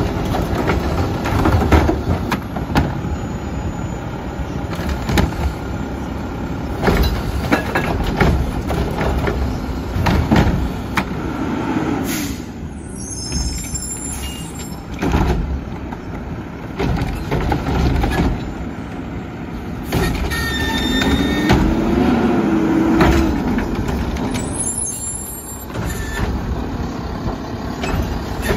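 Front-loader garbage trucks with automated cart-tipping arms working: the diesel engine runs under load, and carts knock and clank as they are lifted and shaken out over the container. About 21 seconds in, a pitched sound rises and falls for a couple of seconds.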